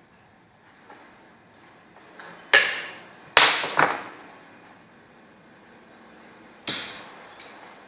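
Sharp clacks of play at a makruk (Thai chess) board: four hard knocks, two close together near the middle and one more near the end.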